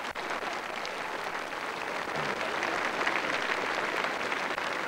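A large crowd applauding, many hands clapping together in a dense, steady patter that builds a little louder about halfway through.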